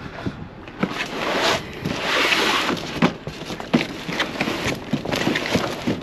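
Paint cans and buckets being handled and set down in a cargo van: a string of sharp knocks and clanks, with a couple of brief scraping slides about one and two seconds in.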